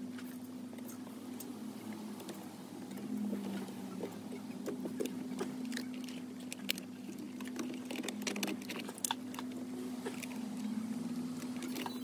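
Wiring and plastic connectors being handled and routed under a car's dashboard: scattered light rustles, ticks and clicks, busiest in the middle, over a steady low hum.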